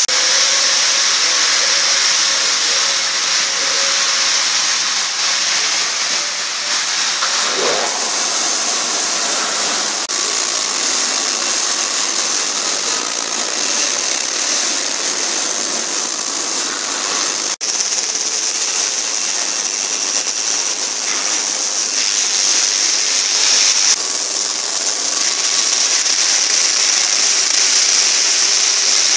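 Ultrasonic cleaning machine running: a loud, steady hiss, joined about eight seconds in by a thin high-pitched whine.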